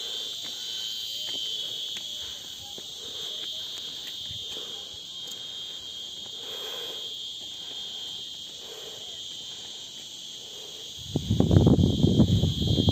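A steady, high-pitched drone from an insect chorus in dry scrub forest. Near the end it is covered by a loud, low, rough rumble.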